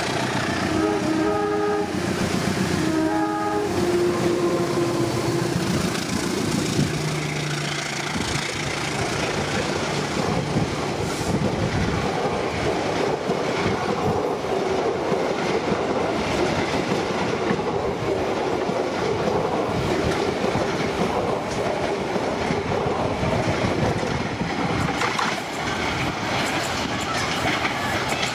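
Diesel locomotive's horn sounding two short blasts in the first few seconds. Then a passenger train runs close past with a steady rumble and clatter of coach wheels on the rails.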